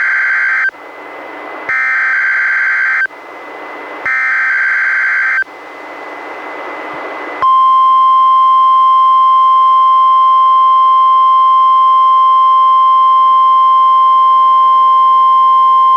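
NOAA Weather Radio required weekly test heard through a weather radio receiver. It opens with the tail of one SAME header data burst and two more buzzing bursts, each about a second and a half long, with radio hiss in the gaps. About seven seconds in, the 1050 Hz warning alarm tone starts: one steady, loud tone that holds on.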